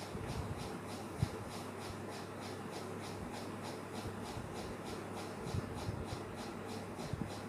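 Fingers rubbing aloe vera gel over the skin of the face in a scrubbing motion: soft rubbing with a few small thumps, over a steady low hum.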